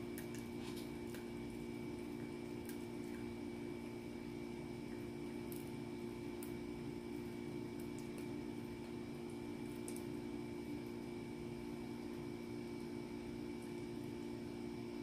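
A small dog chewing a snack, with faint scattered clicks and smacks, more of them in the first half, over a steady low hum.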